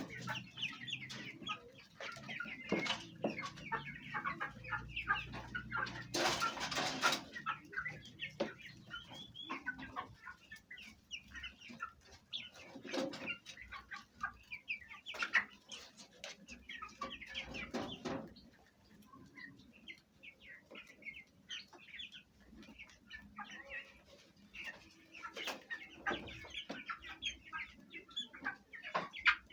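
Domestic hens clucking steadily, mixed with many short, high calls from chicks. A brief burst of wing flapping comes about six seconds in.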